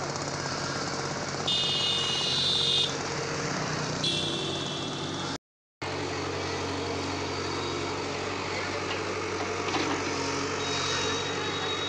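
Tata Hitachi EX70 excavator's diesel engine running steadily while digging. A loud high-pitched tone sounds twice in the first half, and a fainter one near the end.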